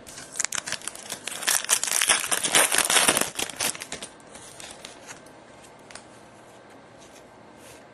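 Foil trading-card pack wrapper being torn open and crinkled for about four seconds, loudest in the middle, then a few soft clicks of card handling.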